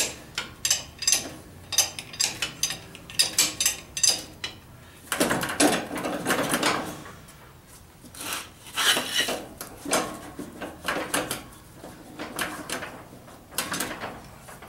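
Hydraulic bottle jack being pumped by its steel handle under a garden tractor: metal clicking and clanking about two to three strokes a second as the jack lifts the front end. The clicking is broken by a longer, louder stretch of rattling noise about five seconds in, and by scattered knocks later.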